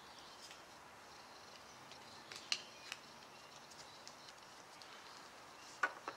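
Trading cards being handled against quiet room tone: a few light clicks and taps, three in quick succession a little past two seconds in and two more near the end.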